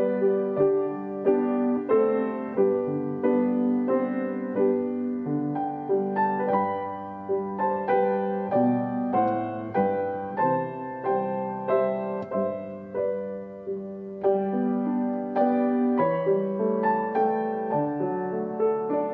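Solo grand piano playing a gentle devotional piece, a melody over chords, notes struck and left to ring into one another.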